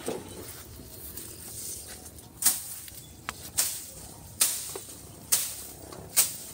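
Leafy brush being hacked: five sharp swishing cracks roughly a second apart, starting about two and a half seconds in, with light rustling of leaves between them.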